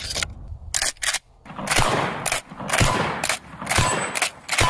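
Pump-action shotgun: a few clicks of shells being pushed into the magazine, then repeated shots about a second apart, each followed by the clack of the slide being worked.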